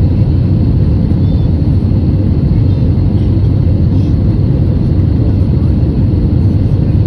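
Jet airliner in flight heard from inside the cabin: the engines and rushing air make a loud, steady low rumble.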